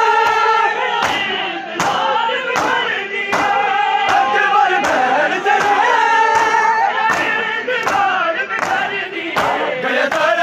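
A crowd of men chanting a mourning lament in unison while beating their bare chests together (matam). The hand-on-chest slaps land on the beat a little more than once a second.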